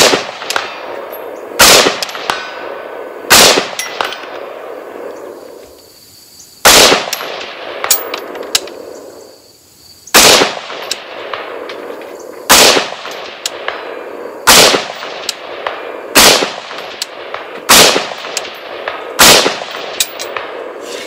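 Davidson Defense Journeyman AR-15 rifle fired in slow, single aimed shots, about ten in all, each followed by a rolling echo. There are longer pauses between the early shots, and then a steadier pace of roughly one shot every one and a half to two seconds.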